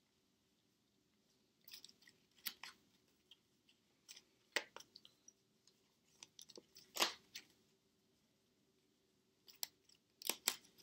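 Trading cards being handled at a table: irregular soft clicks and snaps as cards are sorted in hand, over a faint steady hum.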